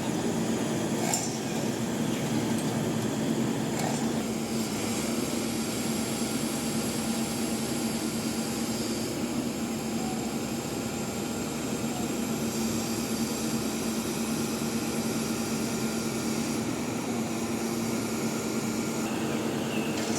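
Heavy machinery engine running steadily, with a constant low hum, and a faint clink about a second in and again about four seconds in.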